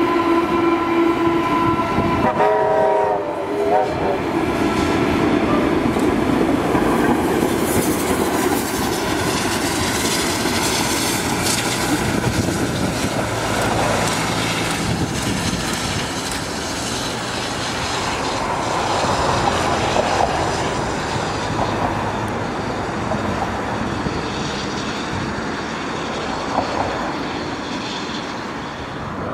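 A train horn sounds a steady chord for about two and a half seconds, followed by a short second note. Then a steam locomotive hauling passenger carriages passes, its wheels clattering over the rail joints. The noise eases off toward the end as the train moves away.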